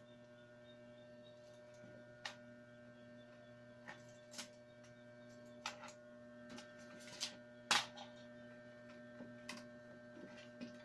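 A handful of sharp, irregular clicks and snaps from stiff wicker spokes being handled and trimmed around the edge of a woven tray base, the loudest about two-thirds of the way in. A steady electrical hum runs underneath.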